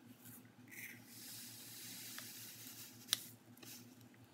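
Faint rustle and hiss of granulated sugar being poured from a plastic bag into a measuring cup and tipped into a saucepan, with one light click about three seconds in.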